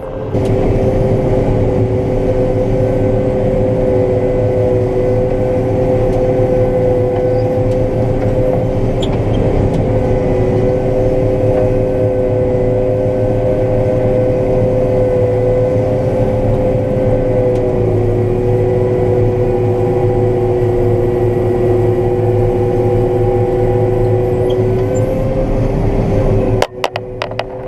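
Combine harvester running steadily while cutting soybeans: a constant engine and machinery drone with two held whining tones over a low rumble. The low rumble cuts out for a moment near the end.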